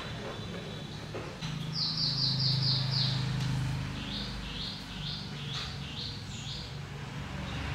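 A bird chirping in two quick runs of short, high notes, about six in the first and seven in the second, with a low steady hum underneath during the first run.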